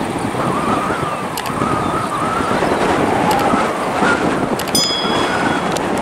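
Airbus A320-family jet airliner at takeoff thrust on its takeoff roll: a steady jet roar with a wavering whine. Wind buffets the microphone.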